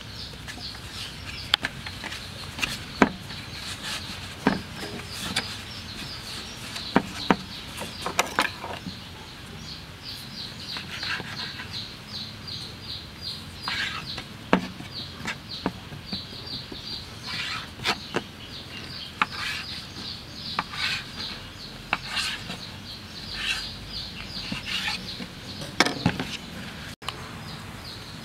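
Irregular sharp knocks and taps of hands and dough on a floured wooden board as the dough is rolled, cut and pressed. Under them runs a near-continuous chatter of rapid high bird chirps.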